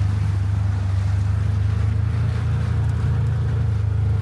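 Engine of a Ranger farm utility vehicle running steadily with a low, even drone.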